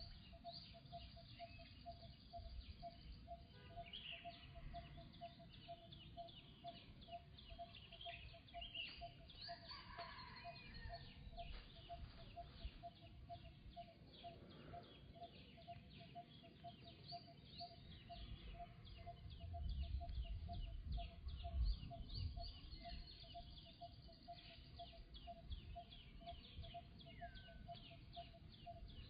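Faint outdoor ambience of birds chirping, with a steady, evenly repeating pulse about three times a second throughout. A low rumble rises about two-thirds of the way in.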